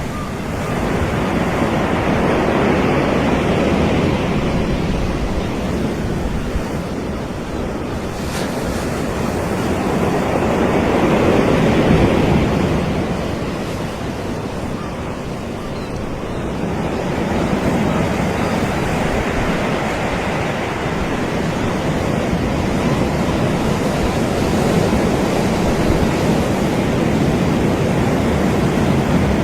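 Sea waves washing onto a beach, a steady surf hiss that swells and ebbs in slow surges every several seconds.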